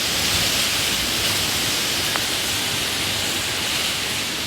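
Hurricane Ian's wind and rain, a steady hiss.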